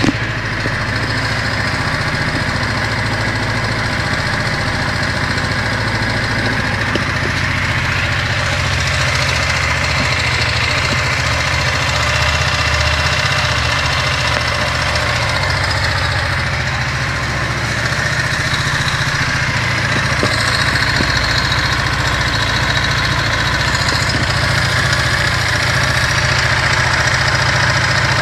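Kymco Quannon motorcycle engine idling steadily while warm, carrying the abnormal noise that the owner says only appears once the engine has warmed up.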